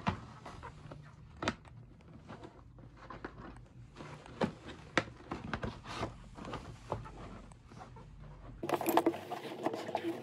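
Rustling and scattered sharp clicks and snips of flower stems and foliage being handled on a work table, over a low steady room hum. About nine seconds in, the sound changes abruptly to a busier one with a steady tone and wavering higher sounds.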